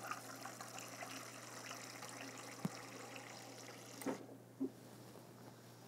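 Refrigerator door water dispenser running faintly into a cup, then stopping with a click about four seconds in.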